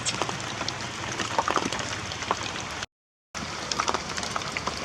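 Heavy rain falling, a steady hiss dotted with sharp drop hits. About three seconds in, the sound cuts out completely for about half a second.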